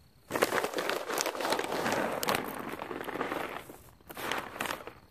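Fertilizer bag crinkling and rustling as it is handled: one long stretch of crackly rustle, then a shorter one about four seconds in.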